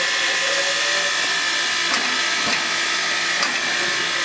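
Standing Soviet L-class steam locomotive venting steam in a steady, loud hiss, with a few faint clicks.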